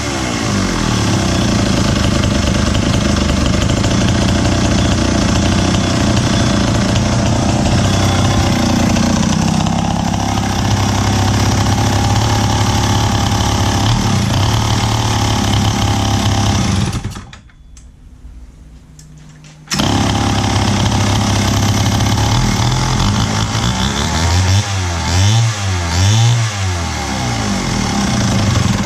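Wright C-50 77 cc two-stroke chainsaw engine running on test after a carburettor rebuild, revved up and down several times near the end. About two-thirds of the way through the engine sound drops away for a couple of seconds, then is back running.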